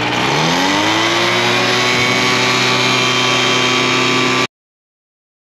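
Paratrike's propeller engine revving up from idle to takeoff power, its pitch rising over the first second and a half and then holding steady and loud. The sound cuts off abruptly about four and a half seconds in.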